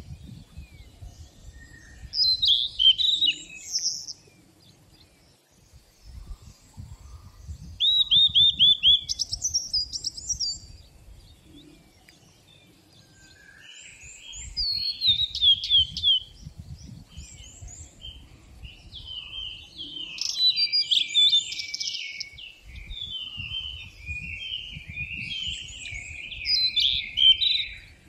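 Songbirds singing in a forest, several different phrases of whistles, falling note series and trills coming in bouts, the fullest song near the end. A low rumble comes and goes underneath.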